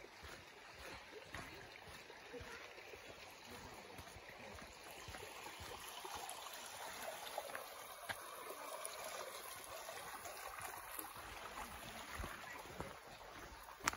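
Shallow woodland stream flowing over rocks: a steady, soft rushing babble that grows a little louder partway through.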